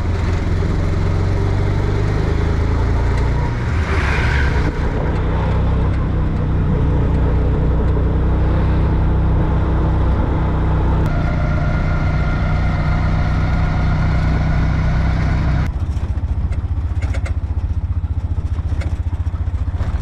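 Auto-rickshaw (tuk-tuk) engine running as it drives, heard from inside the open passenger cab. The low drone shifts in pitch a few times.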